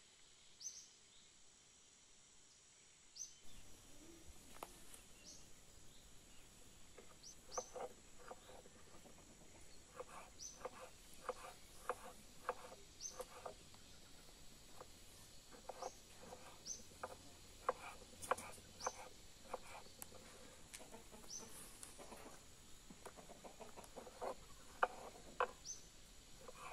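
Quiet farmyard sound with a small bird's short high chirp repeating every second or two. From a few seconds in, a long run of short soft knocks comes in clusters, a knife cutting tomatoes on a wooden board, with hens clucking.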